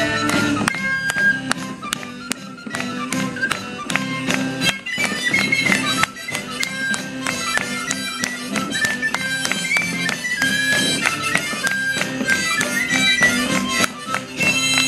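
Live music from a small costumed street band: a strummed stringed instrument keeping a quick rhythm under a high melody line.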